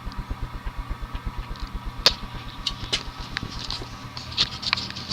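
Vintage Evergo Roma ceiling fan's cast-iron motor running in reverse with a steady hum, its steeply pitched blades sending a rapid pulsing of air, about eight or nine beats a second, past the microphone. A few light clicks sound partway through.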